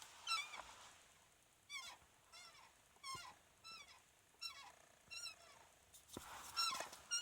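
Driver's seat of a 2011 Kia Cerato Koup squeaking repeatedly as it is rocked under load: about eight short high squeaks less than a second apart, with one longer drawn-out squeal in the middle.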